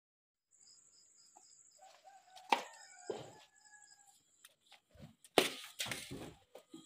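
A rooster crowing over a high, thin steady tone, with a sharp click about two and a half seconds in. Near the end come knocks and thuds as a refrigerator door is grabbed and opened.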